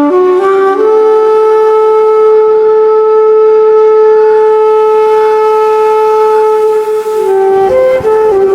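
A breathy flute plays slow music: a few short rising notes, then one long held note for about six seconds, then stepping down through short notes near the end.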